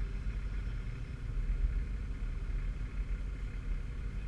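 Nissan Patrol's engine idling, a steady low rumble heard from inside the cabin.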